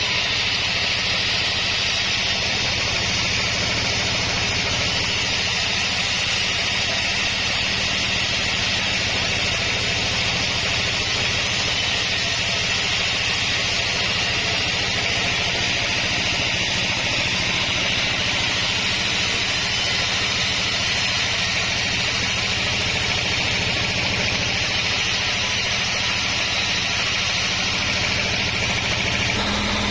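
Sawmill machinery running steadily: a constant engine hum under an even high hiss. The low hum shifts slightly right at the end.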